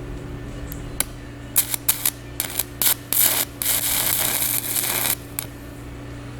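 Arc welding on a steel driveshaft: several short crackling bursts of arc, then a longer continuous run of about a second and a half that stops about five seconds in. A steady low hum sits underneath.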